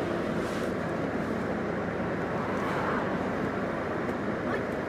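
Steady vehicle noise: a car running at idle with street traffic around it.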